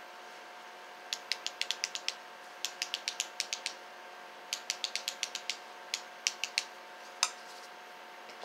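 Quick, light clicking of small hard objects handled in the hands: three runs of sharp clicks, several a second, then a few single clicks near the end.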